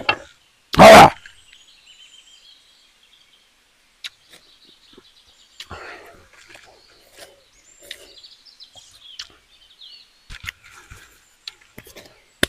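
A man's short, very loud vocal outburst about a second in, given while he eats live red ants. After it come faint bird chirps and scattered small clicks and rustles.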